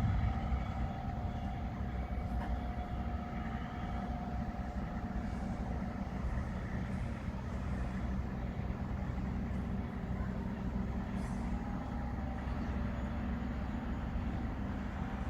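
Heavy engine of a pile driver rig running steadily, with a faint higher steady whine that fades out about six seconds in.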